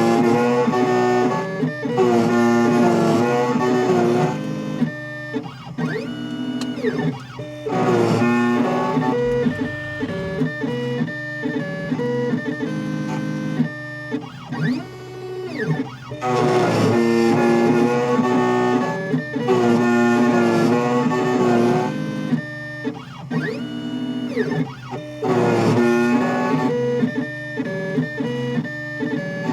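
Background music led by guitar, playing in repeating phrases.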